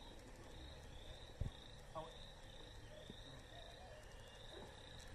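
Faint outdoor background: short high chirps repeating about twice a second from a small animal, with one soft thump about a second and a half in.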